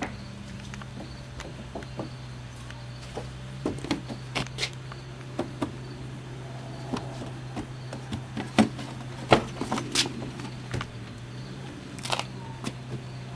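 Scattered knocks and clicks of a person handling an SUV's door and body, the loudest a little after the middle, over a steady low hum.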